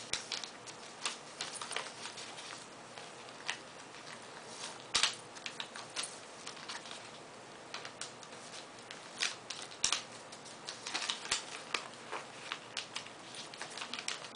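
Sheet of paper being folded and creased by hand: irregular crinkles and rustles with sharp little crackles and taps as the fingers press the folds flat.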